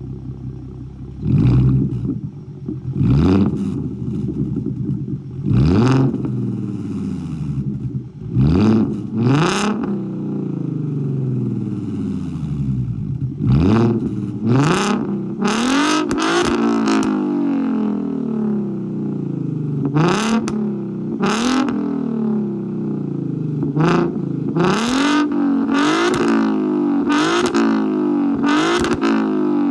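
Free-revving 3.7-litre V6 in a Ford Mustang with shorty headers, an X-pipe and deleted mufflers: a long series of quick throttle blips, each rev falling back toward idle, coming faster in the second half.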